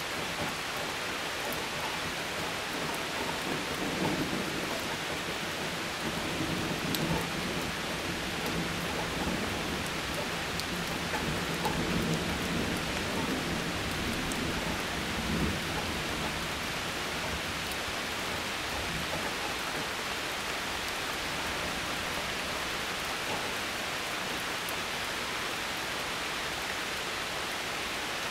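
Steady heavy rain, with a long low thunder rumble rolling through the first half and dying away about halfway through.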